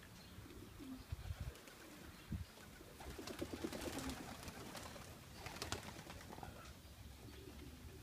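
Young racing pigeons cooing around their loft, with a stretch of wing flapping about three to four seconds in as several birds take off.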